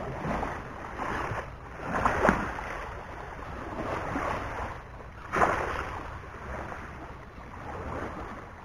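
Small sea waves sloshing and splashing in shallow water, in surges every couple of seconds, the loudest about two and five seconds in, over a low wind rumble on the microphone.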